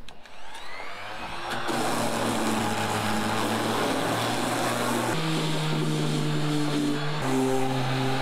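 Electric detail sander running on a plywood boat hull: a steady buzzing hum over the rasp of the sanding pad. It starts about a second and a half in, its pitch steps up about five seconds in, and it drops back down near the end.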